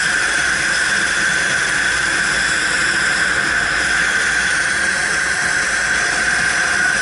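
Hot-air balloon propane burner firing in one long, continuous burn: a loud, steady hiss with a high tone running through it, heating the envelope for lift-off.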